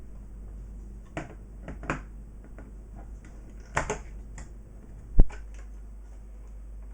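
Scattered small plastic clicks and taps as buttons and panel parts of a DJ controller are handled and fitted, over a steady low mains hum, with one sharper knock about five seconds in.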